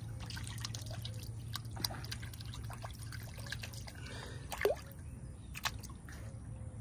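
Small splashes, drips and trickles of pond water as a hand holds a bait fish at the surface and large fish strike at it, with one louder splash about two-thirds of the way through, over a steady low hum.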